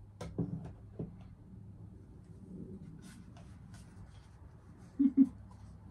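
Rustling and rubbing of a Ghostface figure's black fabric robe as it is lifted and adjusted by hand, with a few light clicks. About five seconds in come two short, loud, low sounds.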